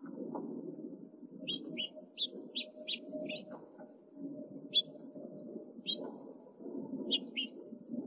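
House finch nestlings giving short, high begging chirps in quick clusters while the male feeds them at the nest. A steady low rumble runs underneath.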